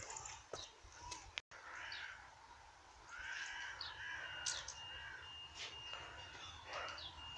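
Birds chirping and calling, with short sweeping calls and a thin steady high note from about halfway through, over a faint low background rumble.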